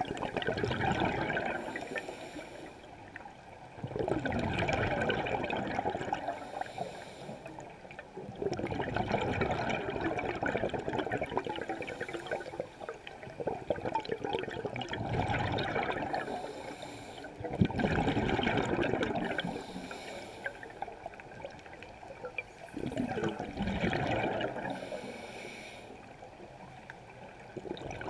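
Scuba diver breathing through a regulator, recorded underwater in a GoPro camera housing: exhaled bubbles gurgle in bursts of about two seconds, roughly every four to five seconds, with a fainter hiss between them.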